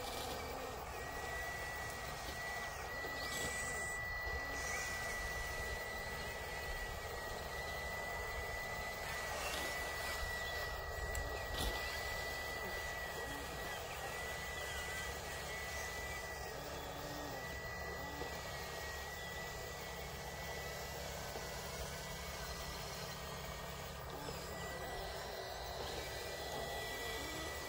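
Radio-controlled model trucks and excavator running: a steady low engine-like rumble with a thin, slightly wavering high whine over it.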